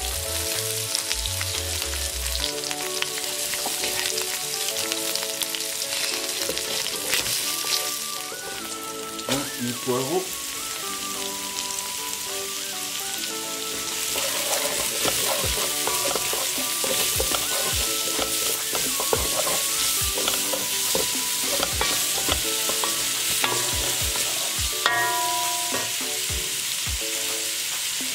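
Sliced onions sizzling in hot oil in a stone-coated nonstick wok, stirred with a wooden spoon that clicks and scrapes against the pan. The sizzle gets louder about halfway through.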